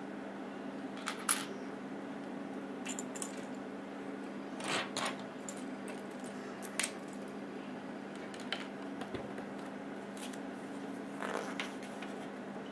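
Plastic Lego pieces clicking and rattling as they are picked from a loose pile and fitted together, a few scattered clicks over a steady low hum.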